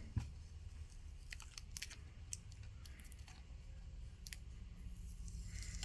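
Faint scattered clicks and small crinkling sounds of glued-down tape being peeled and pulled off by hand, over a steady low hum.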